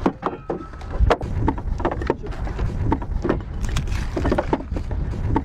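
Long wooden ammunition crate being opened and rockets inside it being handled: irregular knocks and clatter of wood and metal. A rough low rumble, like wind on the microphone, runs underneath.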